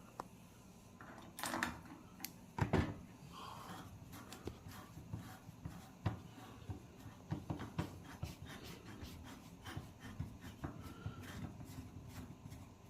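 Clicks, knocks and scraping of a dishwasher's side cover panel and screws being handled and refitted. A couple of louder knocks come in the first few seconds, then many small irregular ticks.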